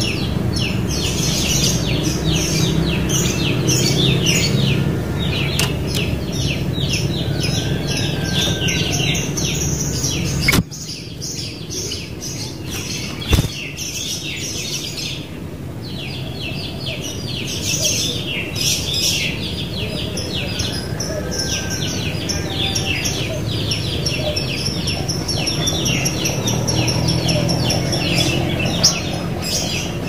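Sooty-headed bulbuls (kutilang) chirping and twittering in a dense, continuous run of rapid high notes. Beneath them is a low background rumble that cuts out abruptly about ten seconds in and slowly returns later.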